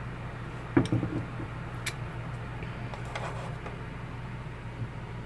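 A few light knocks and clicks of food and utensils being handled on a kitchen counter over a steady low hum; the loudest knock comes about a second in and a sharp click just before two seconds.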